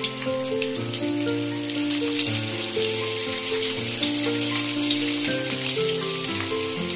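Oil sizzling and crackling under vermicelli-coated rava semiya cutlets shallow-frying on a tawa, with a background music melody of held notes.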